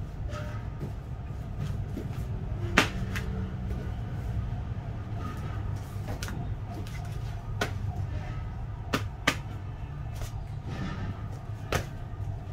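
Scattered sharp taps and slaps, about seven in all, as latex-palmed Adidas X 20 Pro goalkeeper gloves are handled, pressed together and closed on a ball, over a steady low hum.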